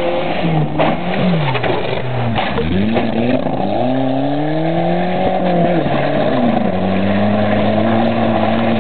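VW Polo's engine revving hard as the car is thrown around on loose gravel. The pitch swings up and down repeatedly with the throttle, then holds steady at high revs near the end.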